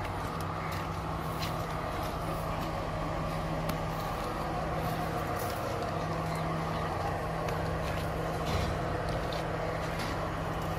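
Stationary derailed train's diesel engine idling with a steady low hum, over faint background noise and a few light clicks.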